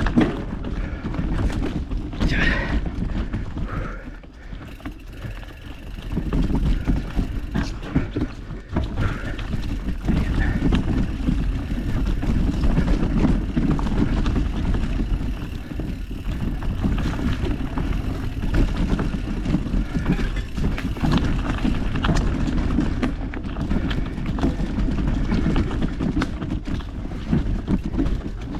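Mountain bike ridden over a rough dirt trail: a steady low rumble of tyres on dirt and roots, with constant clicks and rattles from the bike. It eases briefly about four seconds in, then picks up again.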